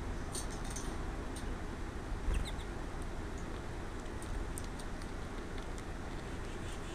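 Small birds at a feeder: scattered short, high chirps and clicks, with a quick falling chirp about two and a half seconds in, over steady background noise.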